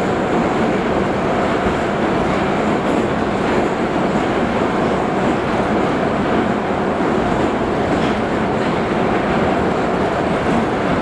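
Moscow metro train running, heard from inside the carriage: a loud, steady rumble and rush of noise that does not let up.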